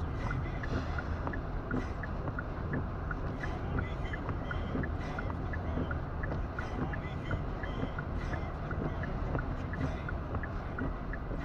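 Steady low rumble of a car driving on a snowy road, heard inside the cabin, with a light regular tick about every two thirds of a second.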